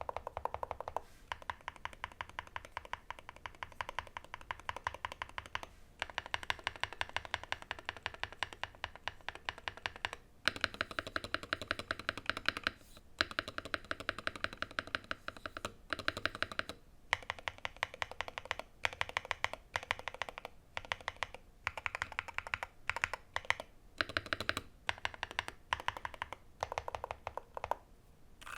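Fast typing on a custom 60% keyboard with Gateron Magnetic Green Dragon linear hall-effect switches in a foam-dampened KBDfans Tofu 60 aluminium case with PBT keycaps: rapid keystroke clicks in runs of a few seconds, broken by brief pauses.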